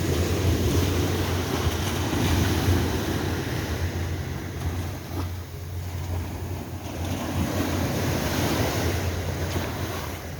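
Ocean surf breaking and washing up a beach, swelling and easing every few seconds, with wind buffeting the microphone as a low rumble underneath.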